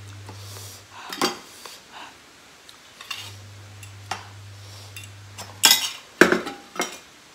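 Metal fork clinking and scraping against a ceramic bowl as noodles are scooped, with a cluster of sharp clinks near the end. A faint low hum sits underneath.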